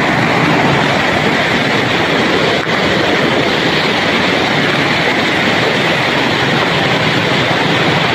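Steady rush of a shallow, stony river flowing over rocks.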